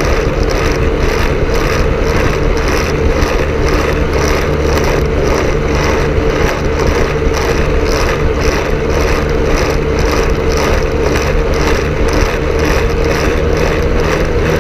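Quicksilver MX ultralight's two-stroke engine and pusher propeller running steadily at cruise power in flight, a constant drone with a regular pulsing beat.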